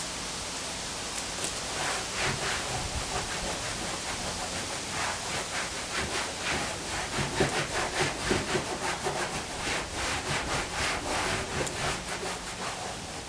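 Hand sanding on the painted sheet-metal body of a 1959 VW single cab bus: rhythmic back-and-forth rasping strokes, a few a second, that start about two seconds in and grow busier through the middle.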